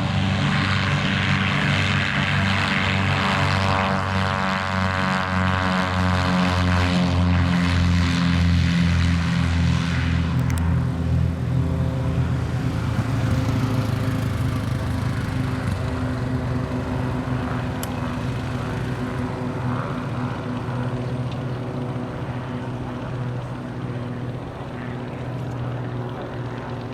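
Cessna O-2A Skymaster, a push-pull twin with one propeller in front and one behind, flying by with its engines and propellers droning. The sound is loudest over the first ten seconds, with a sweeping, wavering tone, then steadies and slowly fades.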